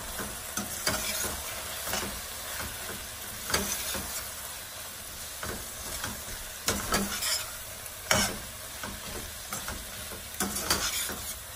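A metal spoon stirring onions, tomatoes and freshly added spice powders frying in oil in a stainless-steel sauté pan: a steady sizzle broken by irregular scrapes and clinks of the spoon against the pan, the sharpest about three and a half, seven and eight seconds in.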